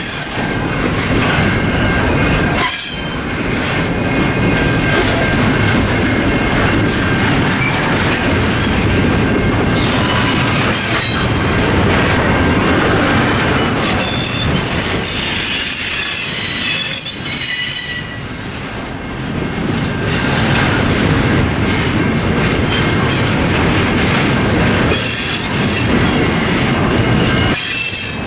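Double-stack intermodal freight cars rolling past at a grade crossing, steel wheels clacking over the rail joints and crossing. The wheels squeal high in bursts, most strongly about halfway through and again near the end.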